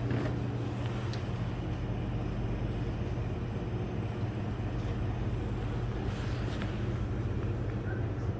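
Steady low machine hum over even background noise, with a few faint clicks.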